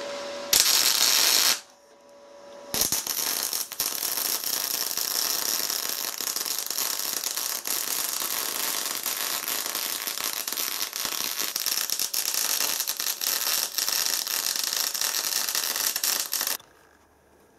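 MIG welder arc crackling as a bead is run around a steel tube where it meets a steel plate: a short burst about half a second in, then after a brief pause a continuous run of about 14 seconds that stops abruptly near the end.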